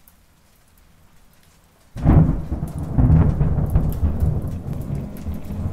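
Thunderclap about two seconds in, a sudden crack that rolls on as a heavy rumble with rain pattering over it; before it, only a faint hiss.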